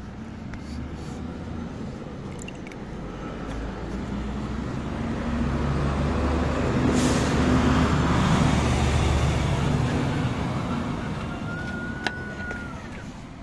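A motor vehicle driving past on the road, its engine and tyre noise swelling over several seconds, loudest just past the middle, then fading away.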